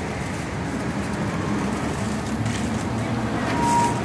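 Steady street traffic noise, a low rumble of passing vehicles. A brief thin high tone comes in near the end.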